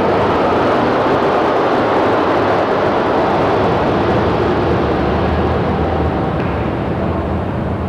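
Steady, loud rushing noise, easing off slightly near the end.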